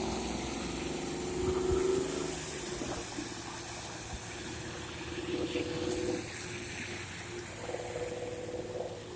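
Cars driving along a flooded road, their tyres splashing through standing water. Engine and tyre hum rises as vehicles pass, about two seconds in, around five to six seconds in, and near the end.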